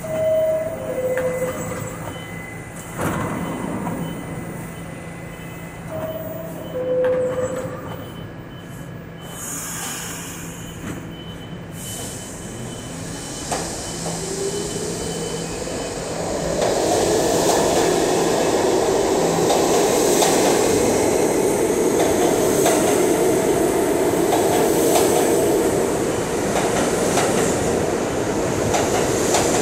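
NYC subway car's two-note falling door chime sounds twice, with a knock of the doors shutting about three seconds in. The R68 D train then pulls out of the station: a rising motor whine, then the loud rumble and wheel squeal of the cars running past.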